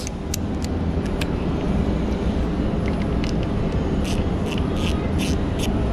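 Ratchet wrench with a socket extension clicking in short, scattered bursts as bolts are worked loose, over a steady low rumble.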